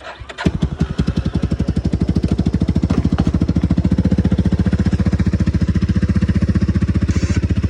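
A Yamaha Big Bear ATV's single-cylinder four-stroke engine catching after a brief crank and then idling steadily, with even, rapid firing pulses.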